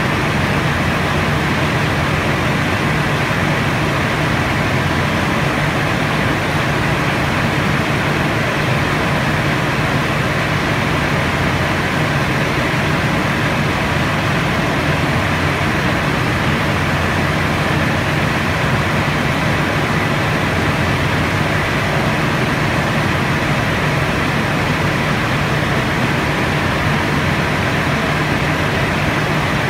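Utility bucket truck's engine running steadily while the boom is raised: a loud, even, low drone that does not change.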